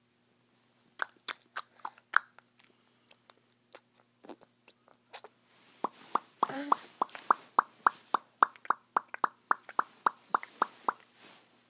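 A child making mouth noises: a few scattered clicks, then a fast, even run of pitched mouth clicks, about four a second.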